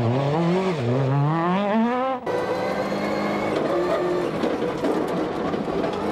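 Peugeot 306 Maxi rally car's engine revving hard, its pitch climbing and dropping with quick gear changes as it goes past. About two seconds in, the sound cuts to a rally car's engine and road noise heard from inside the cockpit, running at a steadier pitch.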